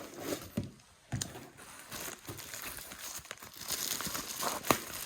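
Shipping packaging being unwrapped by hand: irregular crinkling and rustling, with a few sharp clicks and snaps.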